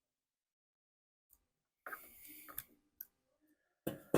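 Quiet at first, then a few faint clicks and light rattling of a chainsaw carburetor's throttle cable and linkage being worked loose by hand, with a sharper click near the end.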